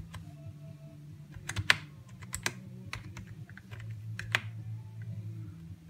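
Keys of a rainbow-backlit keyboard pressed one at a time, about a dozen irregular clicks with the sharpest about a second and a half in and again past four seconds. A steady low hum runs underneath.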